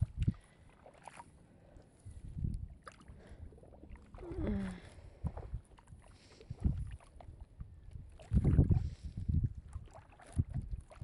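Shallow seawater sloshing and lapping as someone wades beside a gill net, with irregular low rumbles of wind on the microphone, the loudest about eight and a half seconds in.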